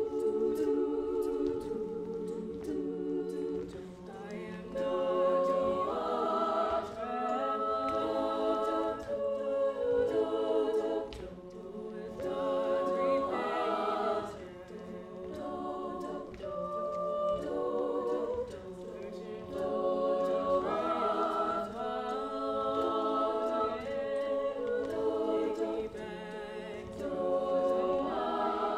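Women's a cappella group singing into handheld microphones: several voices in close harmony over a held low bass line, swelling and easing in loudness, with sharp percussion ticks keeping the beat.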